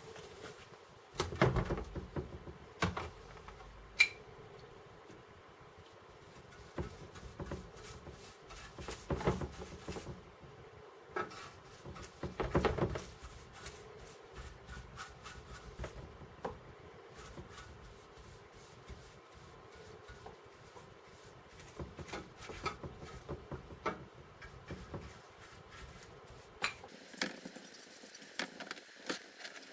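A paintbrush scrubbing and dabbing liquid onto a rusty steel machine-gun ammunition drum, with irregular brushing and handling noise. Sharp knocks and clinks come in between, the loudest about one and a half and four seconds in.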